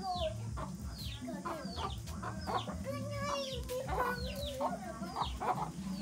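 Chickens calling: a quick run of short, high calls that fall in pitch, several each second.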